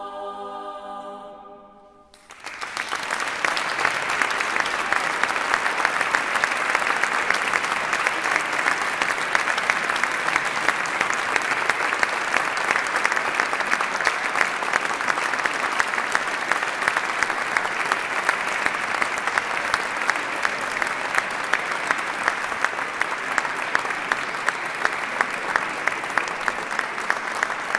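A women's choir's final held chord dies away about two seconds in, then the audience breaks into long, steady applause that toward the end settles into regular clapping in time.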